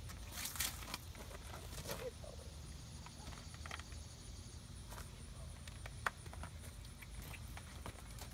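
A horse shifting and stepping on gravel, with scattered short clicks and knocks from the lead rope and its clip being handled.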